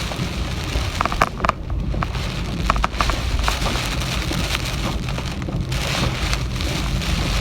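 Heavy typhoon rain pouring down steadily under a strong low rumble. A few sharp taps stand out between about one and three seconds in.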